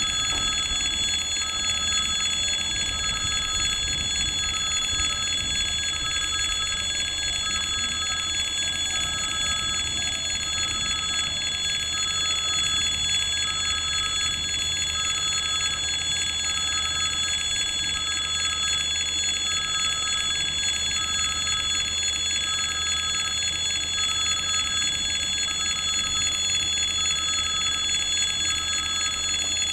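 Russian level-crossing electric warning bell ringing continuously, with a tone in it pulsing on and off about every second and a half.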